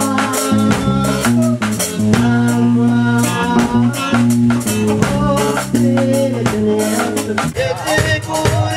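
Ethiopian reggae band music: a bass line in long held notes, a drum beat and plucked strings, with singing coming in near the end.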